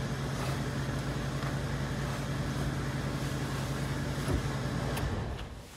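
Car engine idling steadily with the clutch pedal held down, running quietly with no grinding from the newly replaced clutch release bearing. The engine is switched off about five seconds in and its hum dies away.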